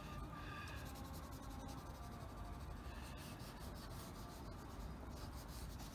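Wax crayon rubbing on drawing paper in quick back-and-forth strokes, shading in an area.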